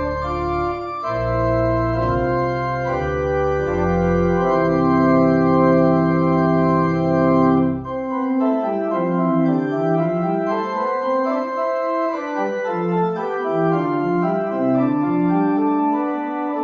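Organ playing a postlude: held chords over a deep pedal bass, and about halfway through the bass drops away and the higher voices move on in flowing lines.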